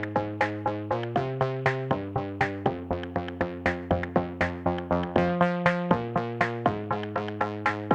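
Electronic background music: a synthesizer plays short plucked notes, about four a second, over held bass notes that shift every second or so.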